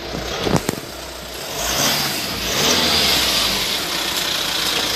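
Volkswagen Transporter T6's 2.0 TDI four-cylinder diesel idling just after start-up, with a couple of sharp knocks about half a second in from the driver's door. From about a second and a half in, a steady broad hiss grows over the engine.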